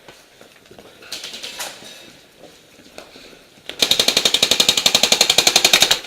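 Airsoft rifle firing one long full-auto burst of about two seconds: rapid, evenly spaced shots starting a little past halfway through.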